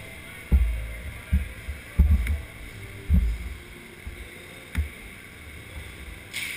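About five muffled low thumps spread over a few seconds, with a couple of sharp clicks, from an inline hockey goalie's skates and leg pads shifting right in front of the goal-mounted camera.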